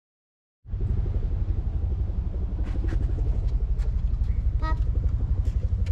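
A loud low rumble that starts abruptly about half a second in and flutters rapidly, with a few faint clicks and a brief high call near the end.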